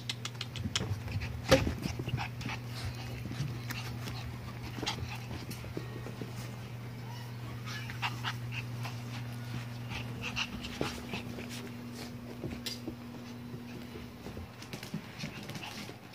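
Siberian husky puppies playing: short puppy vocal sounds among quick scuffles and knocks, over a steady low hum.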